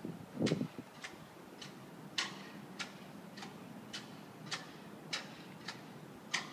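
Footsteps: hard shoe soles clicking on a paved path at a steady walking pace, about three steps every two seconds, some louder than others. A brief low rumble sounds about half a second in.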